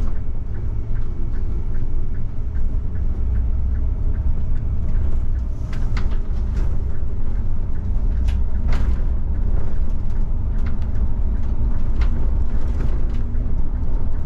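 Mercedes-Benz Citaro CNG city bus under way: its gas engine and the road noise make a steady low rumble, with scattered short clicks and rattles.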